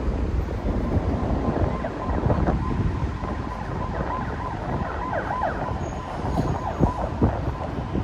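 Traffic rumble with wind buffeting the microphone. A faint wavering tone sits over it for a few seconds in the middle.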